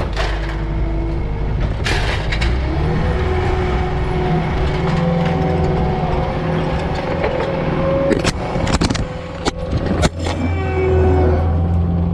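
Cat compact track loader's diesel engine running under load as its grapple lifts a load of lumber debris; the engine note rises about three seconds in and again near the end. A few sharp knocks and clatters of wood and metal come around eight to ten seconds in.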